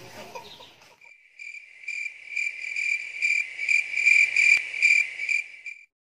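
Crickets chirping in a high-pitched pulsing trill. It starts about a second in, swells, and cuts off suddenly near the end.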